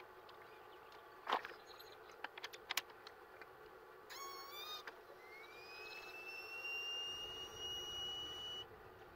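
A few sharp clicks as the fill fitting is connected, then high-pressure air from an SCBA bottle whistling through the fill line into a PCP air rifle's air cylinder: a brief warbling burst, then a thin whistle that rises in pitch, holds steady and cuts off suddenly near the end.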